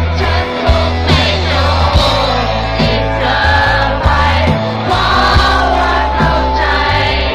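Live concert music, loud, with a heavy bass line, regular drum hits and a singing voice, as the crowd sings along.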